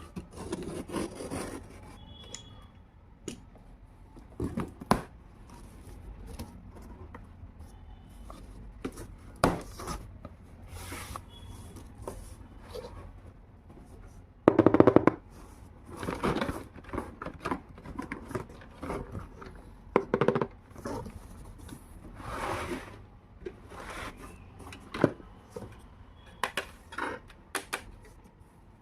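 Handling and unboxing of a tiny toy kitchen set: scattered clicks, taps, scrapes and rustles of small toy pieces and their packaging, with a louder rustling burst about halfway through.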